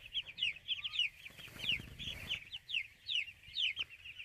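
A flock of young chicks peeping continuously: many short, high, downward-sliding peeps overlapping one another.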